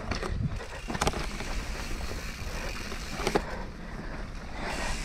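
Propain Tyee 29-inch mountain bike ridden down a dirt trail: tyres rolling with a steady rumble and rattle. Two sharp knocks, about a second in and again a little after three seconds, as the bike hits bumps.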